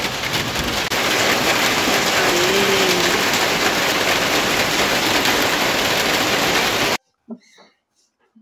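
Rain falling steadily, a loud, even hiss that cuts off abruptly about seven seconds in.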